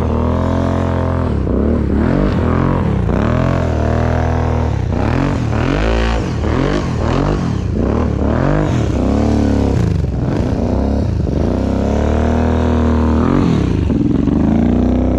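Kawasaki KFX 700 ATV's V-twin engine revving up and down over and over, about once a second. It is being run on test after its rebuilt CVT variator was refitted.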